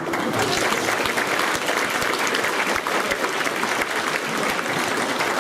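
School assembly audience of children and adults applauding, a steady round of clapping that keeps up throughout.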